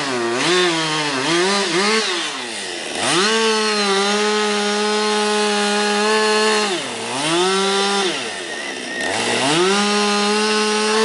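Chainsaw cutting the felling notch in a standing tree: a few quick revs in the first two seconds, then the engine held at a steady high pitch for long stretches, easing off and revving back up several times between cuts.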